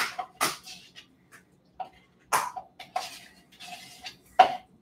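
A knife scraping labneh out of a plastic tub and knocking it off against a ceramic plate: a series of sharp clinks and scrapes, several with a short ring, the loudest near the end.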